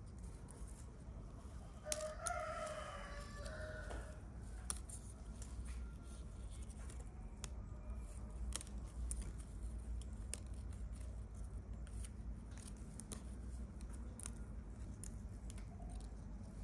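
A rooster crows once, starting about two seconds in and lasting about two seconds, over scattered small sharp clicks and a low steady hum.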